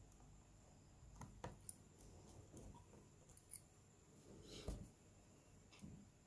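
Faint, scattered small clicks and taps from a small screwdriver and tiny phone screws being handled, with a soft scrape about two-thirds of the way through.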